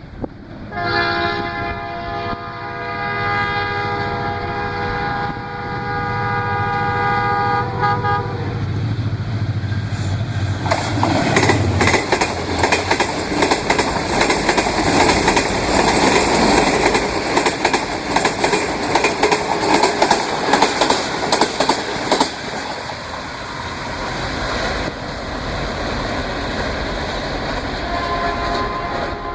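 A ZCU-30 diesel-electric locomotive's multi-tone horn sounds for about eight seconds as the train approaches, then the locomotive passes, its engine drone dropping in pitch. The coaches' wheels clatter rhythmically over the rail joints for about ten seconds before easing to a steady rumble, and the horn sounds again near the end.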